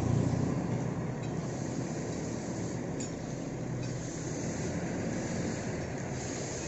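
A bus engine running over steady roadside traffic noise, with a low engine hum that fades in the first second. No horn plays.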